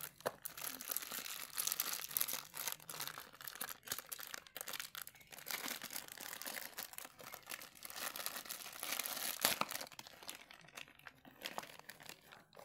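Plastic packaging of motorcycle spare parts crinkling and rustling in the hands as it is handled and opened, with a steady run of irregular crackles and small clicks.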